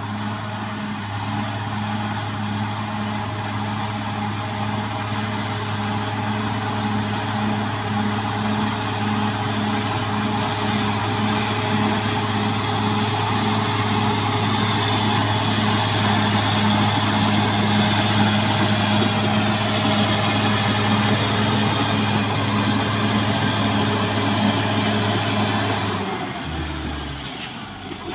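CAT D6R XL bulldozer's diesel engine running steadily and loudly. It gradually grows louder, then falls away and changes a couple of seconds before the end.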